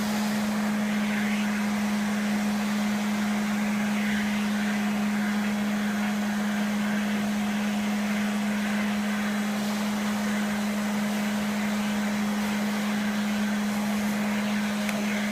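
Vacuum cleaner running steadily with its nozzle over a cat's fur: a constant motor hum over an even rush of air.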